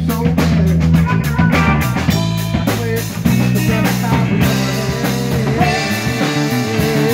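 Live rock band playing: a Telecaster-style electric guitar over a drum kit with steady beats. A held, wavering lead note comes in over the band near the end.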